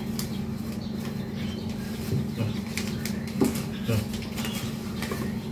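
Plastic nursery polybag crinkling and tearing as it is worked off a plant's root ball, with scattered rustles and small clicks, over a steady low hum.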